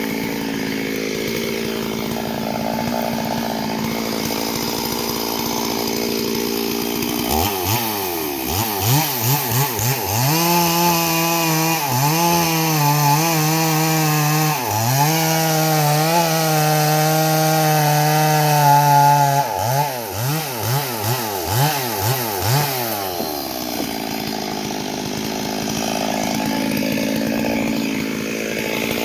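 Two-stroke chainsaw engine idling, then revved up about seven seconds in and held at high revs with a few brief dips, before dropping back to idle near the end.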